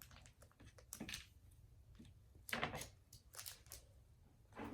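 Faint, scattered clicks and small handling noises of slime-making tools and containers as slime is scooped and portioned.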